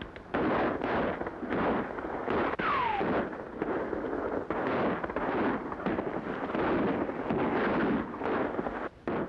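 Repeated gunshots in a gunfight, one after another, with a falling ricochet whine about two and a half seconds in.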